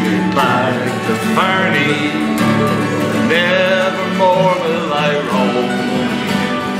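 Live Irish folk-style song: acoustic guitars strumming with a button accordion playing along.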